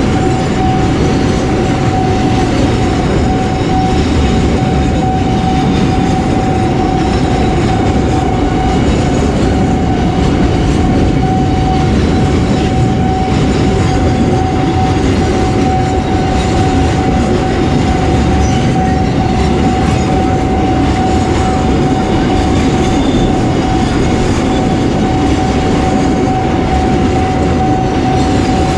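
A train passing close by at the level crossing, its wheels clattering over the rails in a loud, steady rumble, with a thin steady high tone held throughout.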